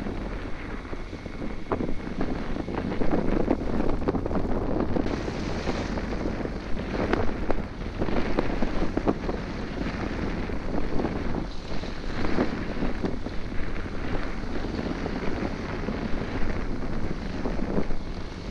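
Wind buffeting the microphone in gusts, over the wash of water along the hull of a sailing yacht under way.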